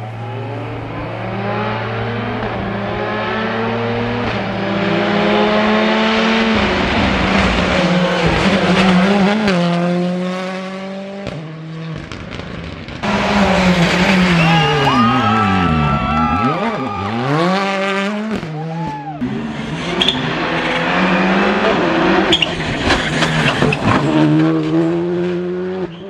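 Rally cars at full attack: the engines rev hard and climb through the gears, a car passes close with its engine note swooping down as it goes by, and a few sharp pops from the exhaust break in.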